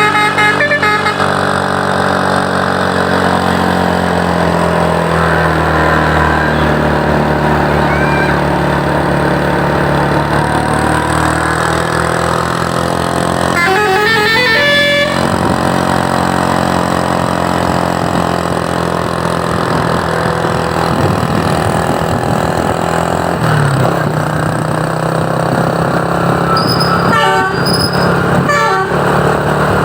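Truck engine running steadily while its Basuri telolet horn, a multi-tone musical horn, plays quick stepping melodies right at the start and again about halfway through, with more short horn bursts near the end.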